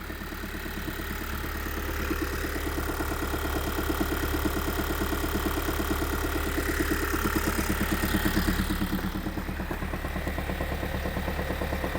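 Kia Sorento 2.2-litre four-cylinder diesel idling steadily, with a rhythmic dull knock from the gearbox end. The knock persists with a new dual-mass flywheel fitted, and the mechanics place it at the transmission, not in the engine.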